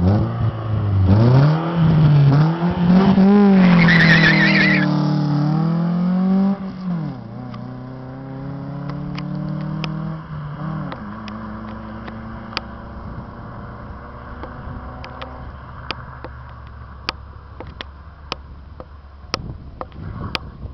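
Volkswagen Gol G3 engine breathing through a sport exhaust with a straight pipe and an open air filter, revved up and down several times over the first several seconds, blipped once more, then settling to a steady idle. Scattered sharp clicks sound over the idle near the end.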